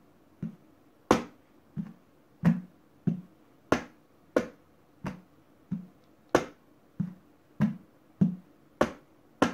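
Hand drumming on an upturned, empty plastic rubbish bin played as a drum, in a slow tumbao pattern. The evenly spaced hits come about one and a half a second, mixing sharp, bright slaps with duller, lower thuds.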